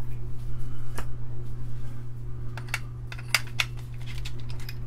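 Light metallic clicks and clinks of small tools being handled while changing a hot soldering iron tip. A cluster of clicks comes from about two and a half to three and a half seconds in, over a steady low hum.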